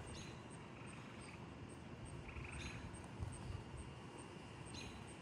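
Quiet background ambience: a faint low rumble with a few brief, soft high chirps.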